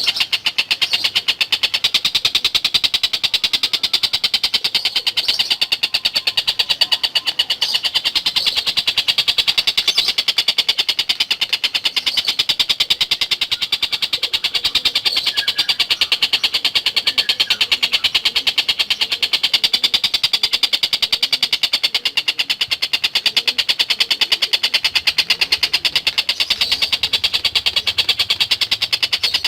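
Tengkek buto kingfisher calling in a fast, unbroken rattle of sharp, high notes that repeats many times a second at an even level.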